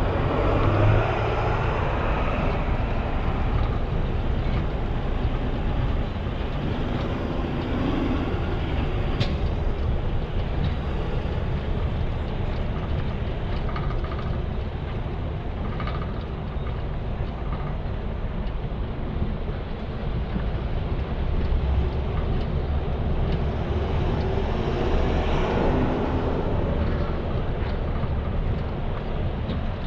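Steady low rumble and road noise of a heavy-haul trailer's booster axles rolling slowly through a turn under a superload, with a few sharp clicks.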